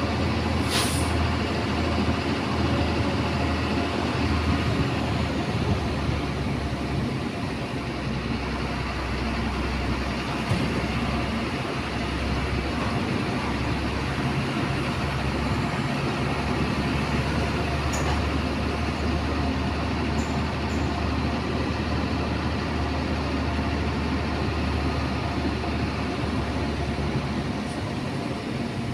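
Truck's diesel engine running steadily as it drives at low speed, heard from inside the cab, with a brief hiss about a second in.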